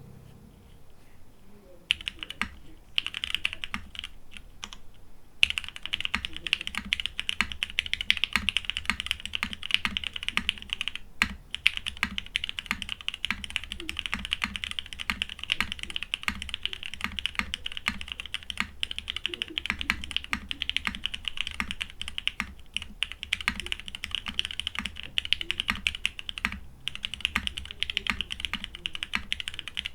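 Typing on a Geon Works F1-8X custom mechanical keyboard (aluminum top, polycarbonate bottom case) with lubed Cherry MX Black switches and CRP keycaps: a fast, continuous stream of keystroke clacks. A few scattered keypresses come about two seconds in, and steady typing starts a few seconds later, with brief pauses now and then.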